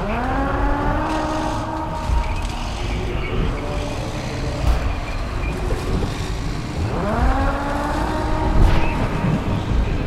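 Sci-fi battle sound effects for alien tripod war machines: a steady low rumble with scattered thuds. Twice, at the start and about seven seconds in, a pitched horn-like tone sweeps upward, then holds for about three seconds before fading.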